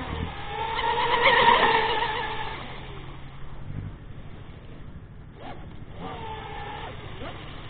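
Twin brushless electric motors of a Minicat 820 EP RC catamaran whining at speed, swelling to a peak about a second and a half in and fading as the boat passes. A fainter whine returns near the end.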